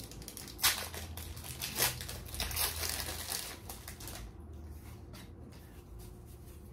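Foil Pokémon booster pack wrapper crinkling and being torn open by hand: a run of sharp crackles over the first few seconds, then quieter rustling as the cards are taken out.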